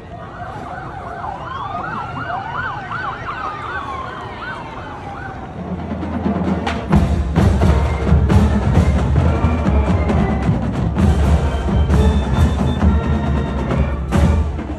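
Emergency-vehicle sirens yelping, sweeping rapidly up and down and fading away over the first five seconds. About six to seven seconds in, they give way to loud drumming with heavy bass beats.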